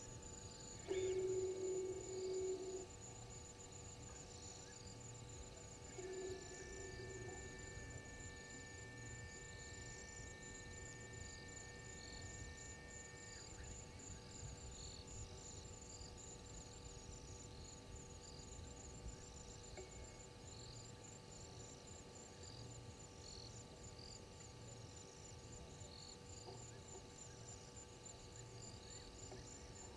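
Night insects trilling: a steady, high, rapidly pulsing trill with scattered chirps under it, over a steady electrical hum. A short louder low tone sounds about a second in, and a long steady higher tone runs from about six to thirteen seconds.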